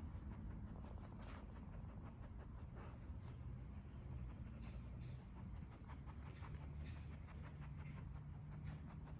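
A Staffordshire terrier scratching and scraping at dry dirt while digging, an irregular scatter of faint scratchy clicks over a low steady rumble.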